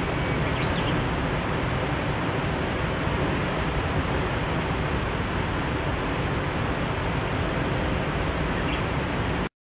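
Steady rushing of a river flowing over rocks, an even hiss with no change, cutting off abruptly just before the end.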